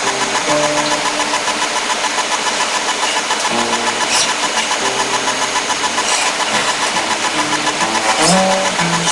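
Acoustic guitar played fingerstyle: a melody of single held notes over a steady picked rhythm, with a couple of sliding notes near the end and a lot of recording hiss.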